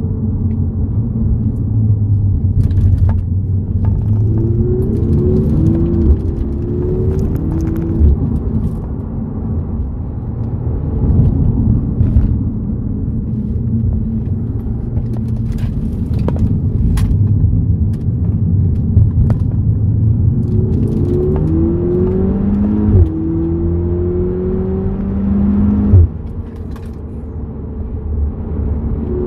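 Audi TTS's turbocharged 2.0-litre TFSI four-cylinder engine heard from inside the cabin under hard acceleration, over a constant low road rumble. Twice the engine note climbs steadily in pitch and then drops abruptly as it changes up a gear, with a sharp, loud spike at several of the shifts.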